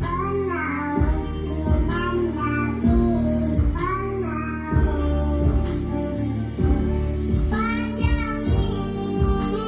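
A song: a sung melody with wavering, sliding notes over a steady beat.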